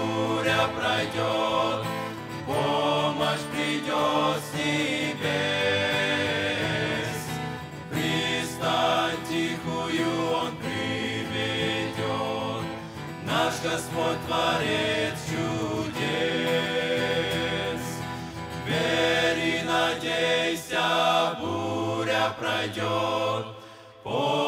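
Men's vocal group singing a Russian-language hymn together, accompanied by an acoustic guitar, with a brief lull just before the end.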